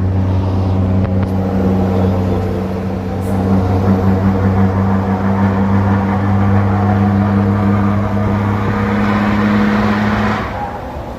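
Motor vehicle engine running at a steady speed, a constant low hum, with a rushing noise that builds up and then falls away about ten seconds in.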